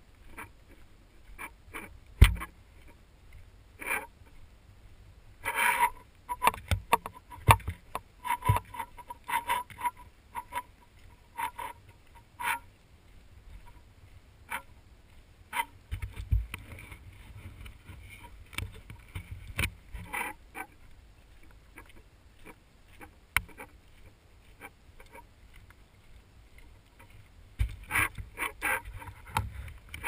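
Handling noise from a hand-held action camera carried at arm's length while walking: irregular knocks, taps and rubs, coming in clusters, with footsteps on a dirt road. A short run of repeated pitched pulses sounds a few seconds in.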